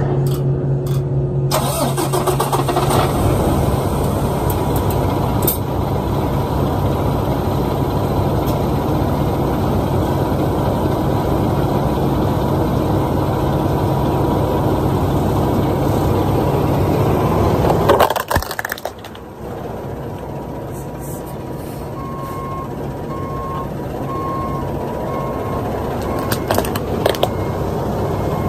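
Heavy truck engine running steadily, with a steady low hum. About two-thirds of the way through comes a brief loud burst of noise, after which the engine runs on quieter and then builds again, with faint evenly spaced beeping near the end.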